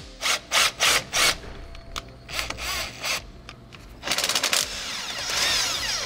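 Battery-powered wrench backing out the rear axle's sway-bar bracket bolts: a string of short trigger bursts, then longer runs near the end with a rapid clatter and a rising and falling whine.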